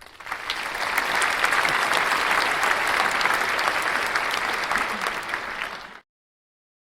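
Crowd applause, many hands clapping, swelling in over the first second and cutting off abruptly about six seconds in.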